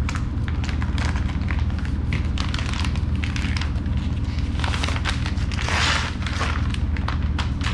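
Plastic wrapping crinkling and rustling as a reverse-osmosis membrane element is pulled out of its bag, with a longer swishing rustle about five seconds in. A steady low hum runs underneath.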